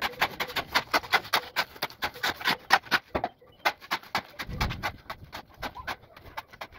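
Steel shovel scraping across concrete and turning over dry cement and crushed stone being hand-mixed: a fast run of gritty scrapes, with a short break a little past three seconds in and a dull thud soon after.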